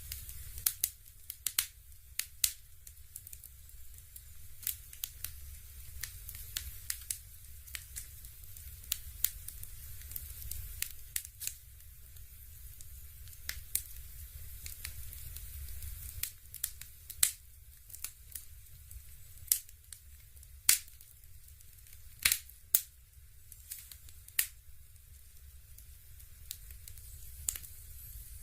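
Fireplace crackling: irregular sharp pops and crackles, a few much louder than the rest, over a low steady hum.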